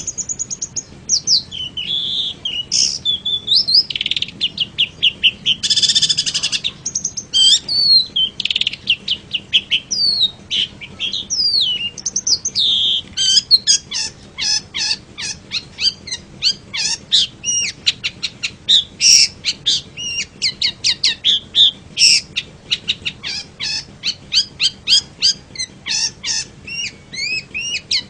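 Long-tailed shrike (pentet) singing a fast, varied song of chirps and sweeping whistled notes. In the second half it turns to quick, repeated short notes, about four a second.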